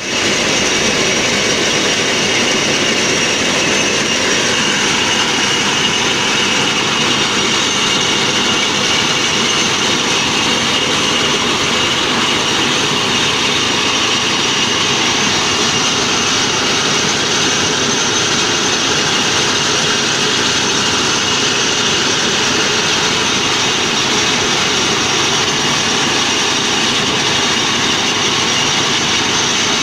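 Motorised corn sheller running steadily, a constant loud mechanical din with a steady high whine over it.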